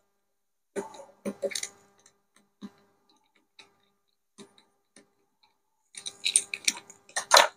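Small screwdriver and hands working the plastic blower fan off a 3D printer hot end: scattered light clicks and ticks of plastic and metal, a few about a second in and a denser cluster near the end.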